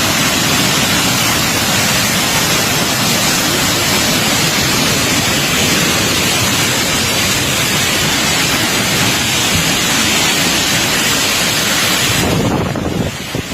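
Loud, steady rushing noise with no distinct events, changing character about twelve seconds in.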